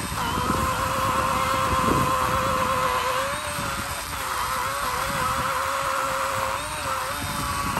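80-volt battery chainsaw running with a steady high whine while cutting into a rotten log, its pitch dipping briefly a few times as the chain takes load.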